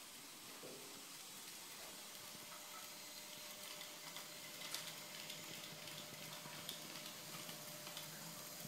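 HO-scale model train running on its track: a faint, steady whirring hiss with a thin steady whine, and a few light clicks about halfway through.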